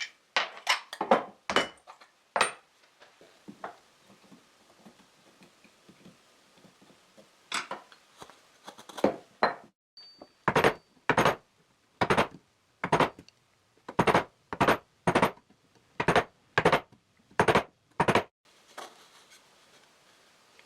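Sharp tool strikes on a wood block, recessing a bolt's hex head into the wood. A few scattered blows come first, then a steady run of about a dozen, roughly one and a half a second.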